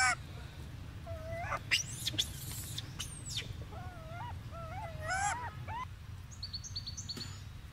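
Rhesus macaques calling: short, bending squeaks and coos, a cluster early on and a quicker run about four to six seconds in, with a few higher, thinner notes near the end, over a steady low rumble.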